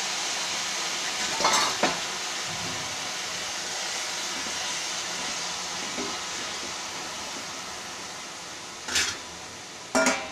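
Water hissing and sizzling in a hot aluminium pot of chopped pumpkin leaves, slowly dying down as it turns to steam. A metal ladle clinks against the pot twice near the start, and the aluminium lid clanks onto the pot near the end, muffling the hiss.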